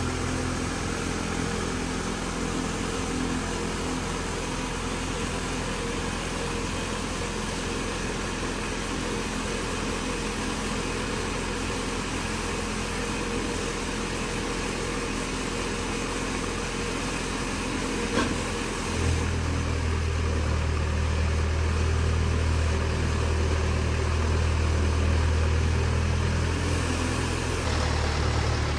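Diesel engine of a self-loading concrete mixer running steadily while its hydraulic loading arm is worked. About two-thirds of the way through, the low engine drone grows louder, and it changes again just before the end.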